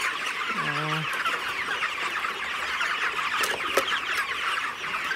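A large flock of 30-day-old broiler chickens peeping and clucking in a dense, steady chorus of many overlapping high chirps. Two sharp clicks sound about three and a half seconds in.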